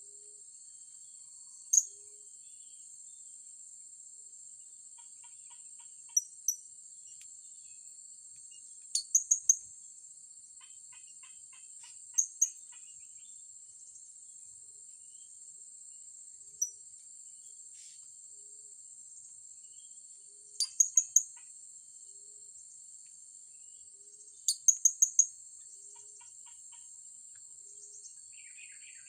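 Blue-crowned hanging parrots giving sharp, very high-pitched calls in short bursts of one to four notes, over a steady high insect drone. A soft low note repeats about every two seconds beneath.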